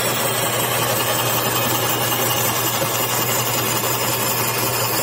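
DL3000 XL glass bandsaw cutting through a piece of scrap glass, its water-cooled diamond blade grinding with a steady, gritty hiss over the motor's hum.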